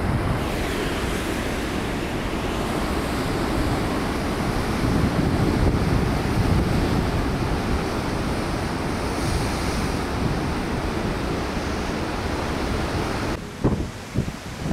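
Storm surf breaking on a rocky shoreline under strong wind, a steady loud rush with wind buffeting the microphone. The rush swells slightly midway and drops away abruptly near the end.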